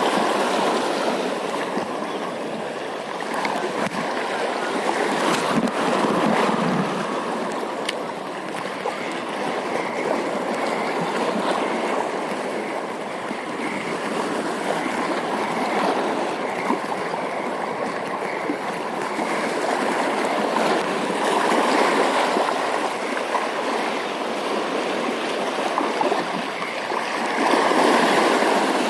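Steady rush of flowing water, swelling and easing every few seconds.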